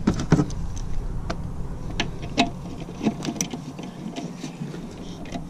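Hand ratchet clicking in short, irregular runs, with metallic clinks of the socket and extension, as a bolt on the EGR valve is worked.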